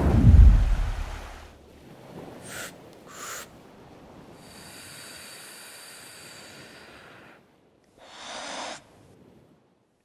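A deep rumbling whoosh of water fades out over the first second or so. Then a person breathes slowly and deliberately: two short breaths, a long drawn hissing breath lasting about three seconds, and one more breath out through pursed lips near the end.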